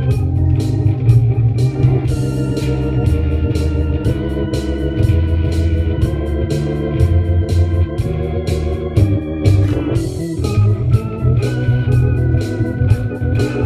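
Jazz improvisation on an organ-toned keyboard and guitar, over a moving bass line and a steady beat.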